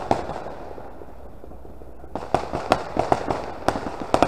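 Scattered firecracker pops, irregular and sharp. A few come at the start, then there is a quieter spell, then a burst of about eight pops over the last two seconds.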